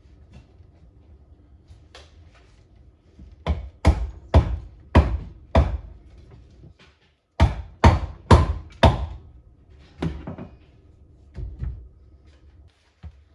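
Repeated heavy knocks with a short ring, in two quick runs of four or five strikes about half a second apart, then a few lighter ones.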